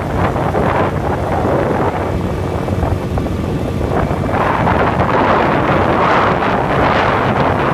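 Wind buffeting the microphone of a moving scooter, over the ride noise of the scooter itself. The wind rush grows louder and hissier about halfway through.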